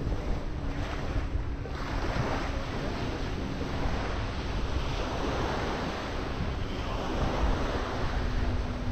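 Small waves washing onto a sandy beach, surging and drawing back every few seconds, with wind buffeting the microphone and a faint steady hum underneath.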